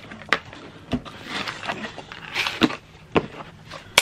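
Cardboard packaging of a thermal label printer being handled and opened: rustling and scraping of the box and its foam insert, broken by several sharp clicks and knocks against the cardboard, the loudest near the end.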